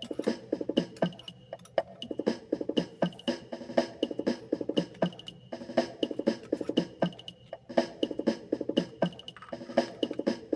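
Background music: an instrumental passage of the song with a steady drum beat and pitched notes, no singing.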